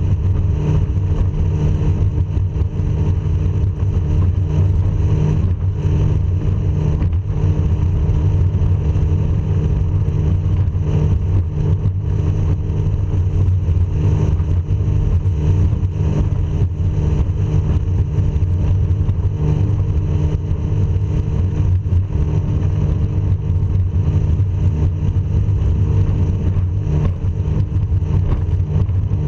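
A powerboat's engine running at a steady cruising speed, a low drone that stays level throughout, with water and wind rushing past the boat.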